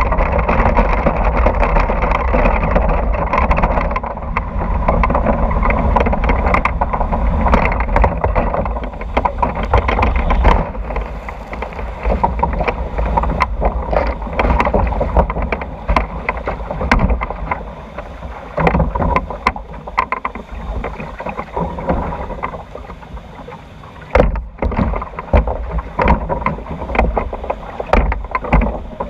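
Log flume boat riding through its water trough: loud rushing water with wind on the microphone for about the first ten seconds, then quieter flowing water with scattered knocks as the log floats along the channel.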